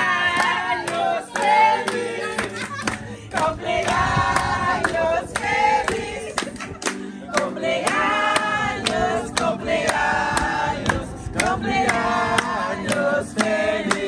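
A group of people singing together to a strummed acoustic guitar, with hands clapping along.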